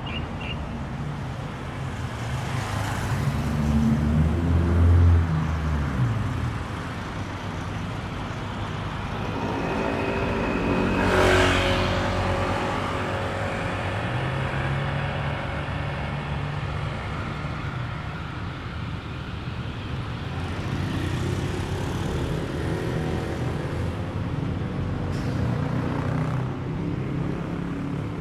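Road traffic: motor vehicles passing close by over a steady traffic hum, the loudest passes about five seconds in and again about eleven seconds in.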